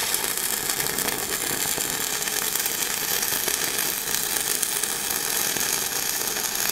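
Stick (manual arc) welding arc from a 2.5 mm electrode at about 100 amps, burning continuously as a bead is run around a steel nut on steel plate: an even, unbroken crackling sizzle.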